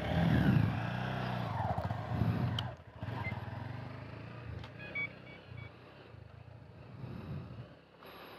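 Motorcycle engine revving unevenly under throttle, then growing fainter as the bike moves off.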